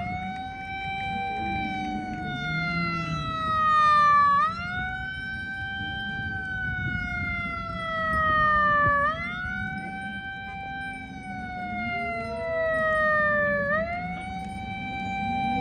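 A siren wailing in repeated cycles. The pitch jumps up quickly, then slides slowly down over about four seconds, then jumps up again, three times through.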